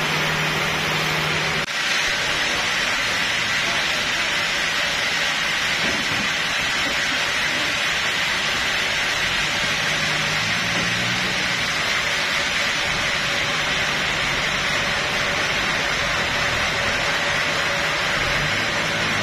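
A forklift's engine runs steadily, under a loud, even mechanical hiss with a thin high whine running through it. The sound briefly drops out about two seconds in.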